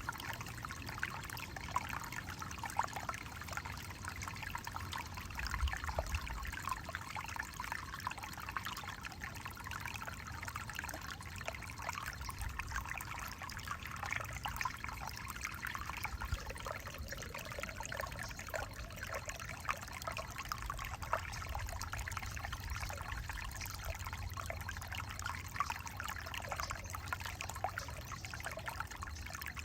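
Alpine Creek trickling steadily, a continuous babble of many small gurgles and splashes, with a low rumble underneath.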